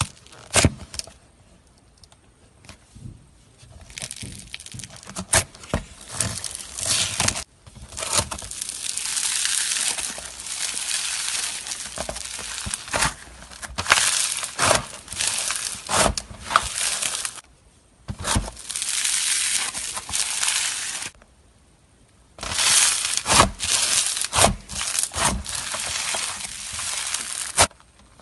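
Crunchy slime being squeezed and worked by hand, giving dense crackling and popping in stretches of a few seconds with sharp clicks, broken by several short pauses.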